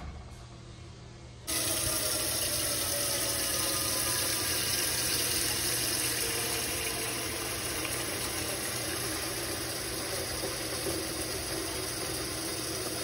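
Kitchen faucet running into a saucepan in a stainless steel sink, filling the pot with water. The water starts abruptly about a second and a half in, and a faint tone in the splashing rises slowly as the pot fills.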